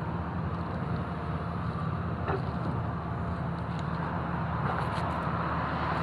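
Steady low drone of a deep-excavation construction machine's engine running at work.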